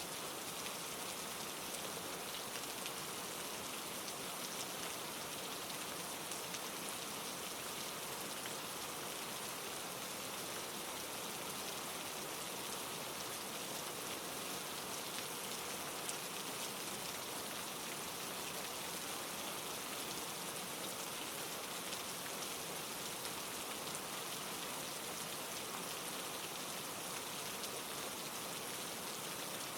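Steady rain falling: an even hiss of drops, with a few single drop ticks standing out now and then.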